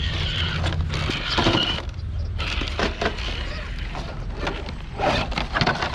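Scale RC rock-crawler trucks grinding over loose rocks and gravel, their tyres crunching and scraping, with many irregular clicks and cracks of shifting stones over a steady low rumble.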